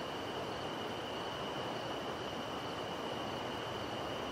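Night insects trilling in one continuous high-pitched drone, over the steady rush of a distant river.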